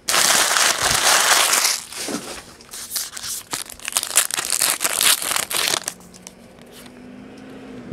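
Foil trading-card pack wrapper crinkling loudly for about two seconds, then scattered crackles and clicks as the cards are handled, and a faint low hum near the end.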